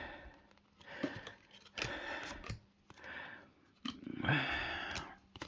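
Foil trading-card pack wrappers crinkling and rustling as they are handled and opened, in four or five bursts of about a second each, with a few sharp clicks among them.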